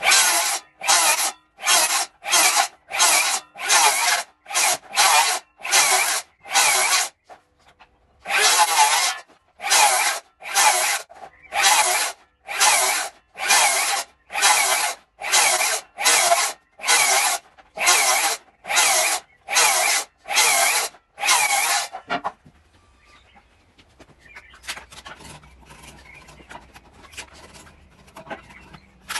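Hand saw cutting green oak in steady, even strokes, pausing briefly about seven seconds in and stopping a little over twenty seconds in.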